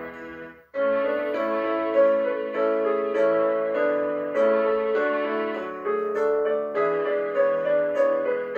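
Keyboard music: sustained piano-like chords that change every second or so. The playing stops briefly a little under a second in, then picks up again.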